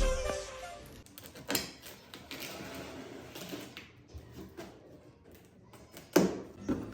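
Music fading out, followed by a few scattered light knocks and clicks, with the loudest about one and a half seconds in and again near the end, from handling the keyboard's box and packaging.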